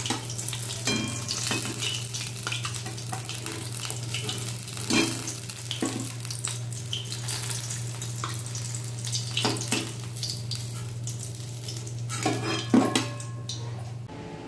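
Besan-battered topshe (mango fish) deep-frying in hot oil in a kadai, sizzling and crackling steadily. A metal spatula scrapes and knocks against the pan as the fried pieces are lifted out. A steady low hum runs underneath and cuts off near the end.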